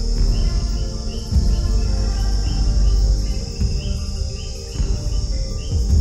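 Night-time rainforest insect chorus: a steady high-pitched trill with a short chirp repeating a few times a second, over low background music.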